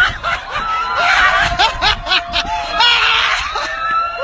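Several people laughing and shrieking, high-pitched voices overlapping with short rising and falling cries.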